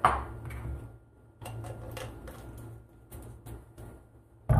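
Bar tools handled on a wooden counter while simple syrup is measured: a knock at the start, a run of light clicks and taps, and a sharp knock near the end as a steel jigger and bottle are set down. A low steady hum runs underneath.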